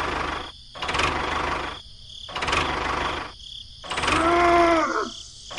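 Small electric motor of a homemade toy tractor whirring as it pulls a loaded trolley, the whir coming in bursts of about a second with short gaps. Past the midpoint a short pitched call rises and falls.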